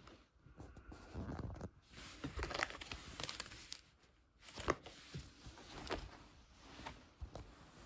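Rustling and handling noise from a handheld camera being moved about while denim jeans are pulled up over an ankle boot, with a few light knocks. The sharpest knock comes a little past halfway.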